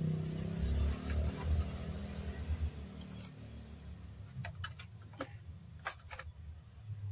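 A low rumble fades away over the first few seconds. Then, from about four and a half to six seconds in, comes a quick run of small sharp clicks and taps as a paintbrush and tools are handled against the projector's circuit boards.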